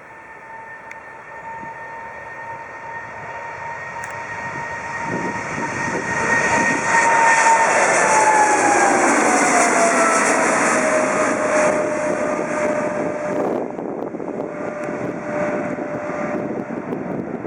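Boeing 777-300ER's GE90 jet engines at takeoff power passing by, growing louder to a peak. The engines' whine drops in pitch as the jet goes past.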